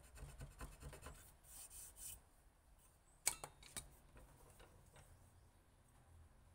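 Short scraping strokes of a hand blade cutting a grip pattern into a wooden knife handle, a run of quick rasps and ticks in the first two seconds. Two sharp clicks follow about three seconds in, the loudest sounds here.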